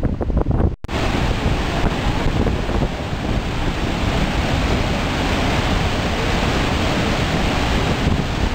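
Wind buffeting the microphone, then a brief dropout under a second in, after which comes the steady, unbroken rush of Iguazu Falls, a huge volume of water plunging into its gorge, with wind on the microphone.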